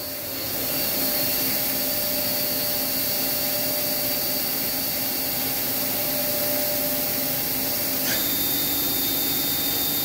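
The 10,000 RPM spindle of an Akira-Seiki Performa V4C CNC vertical machining center spinning freely at about 3,000 RPM, a steady whirring hum with a few steady tones. About eight seconds in, the tones shift abruptly as the spindle is stepped up toward 4,000 RPM.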